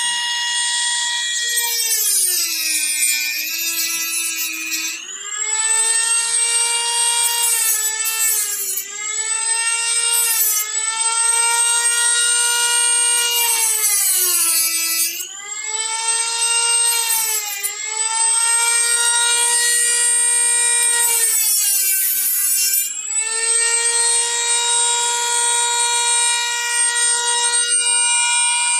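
Dremel rotary tool with a cutoff wheel running at a steady high whine, its pitch sagging several times as the wheel bites into the steering wheel rim and climbing back when the load comes off: grinding the cracks wider before they are filled.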